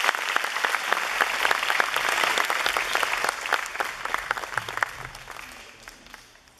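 Audience applauding, many hands clapping at once, the clapping dying away over the last few seconds.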